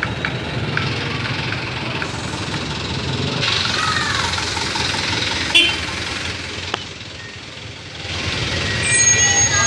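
Road traffic: a vehicle engine running, its sound easing off about seven seconds in and swelling again near the end, with one sharp click about five and a half seconds in.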